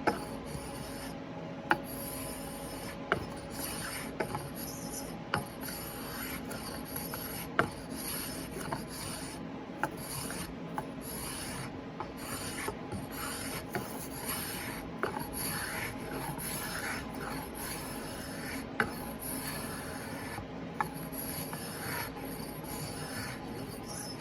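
WoodRiver spokeshave cutting shavings from a wooden axe handle, repeated scraping strokes along the wood, with sharp clicks every second or two.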